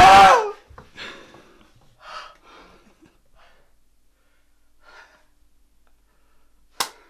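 A loud voice cuts off in the first half-second, then faint heavy breathing and a few gasps from a player out of breath after a missed shot. Near the end comes a single sharp snap.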